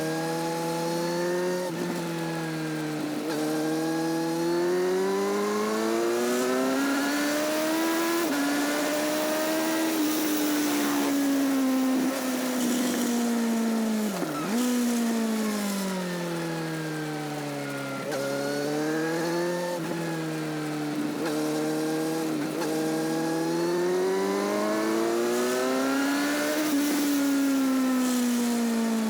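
Motorcycle engine and exhaust, recorded close to the exhaust, with the revs climbing and falling in long, smooth sweeps through several rises and drops. There are short sudden dips in pitch about 8 and 14 seconds in.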